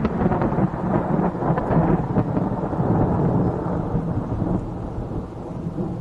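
Thunder rumbling over rain, the deep roll slowly dying away.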